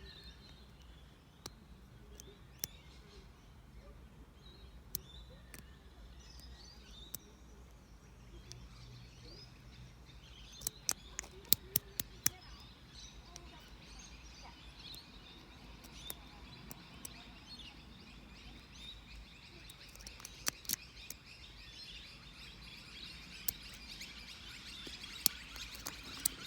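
Birds chirping and calling, the chorus growing busier near the end, with scattered sharp clicks from lock picks and a tension wrench working a Master Lock 7040 padlock. A quick run of about five clicks comes near the middle.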